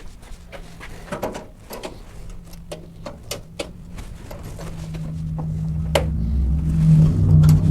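Scattered light clicks and knocks of sheet-metal panels and tools being handled. In the second half a low hum swells steadily and is loudest near the end.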